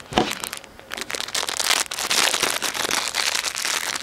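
A thin plastic wrapper being crinkled and peeled off a small individually wrapped cake, in a dense run of sharp crackles from about a second in. There is a single thump just after the start.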